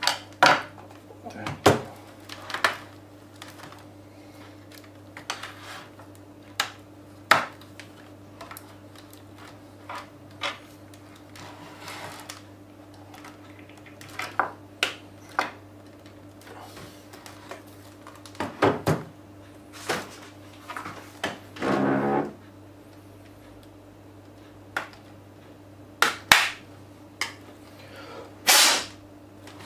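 Irregular plastic clicks and knocks from a Samsung NP300V5A laptop's case as its top panel is pressed along the edges and snapped into place and the laptop is handled. A screwdriver is set down on the bench. A steady low hum runs underneath.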